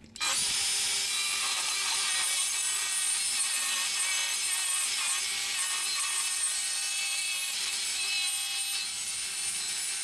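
Electric circular saw cutting wood, a steady high-pitched cutting sound that starts abruptly just after the beginning. The saw is cutting a thin slice, about 3 mm, off a glued beech panel.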